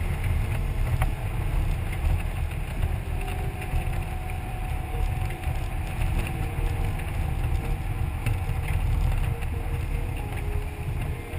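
Motorcycle riding at road speed: heavy wind rumble on the bike-mounted camera's microphone over the steady running of the engine.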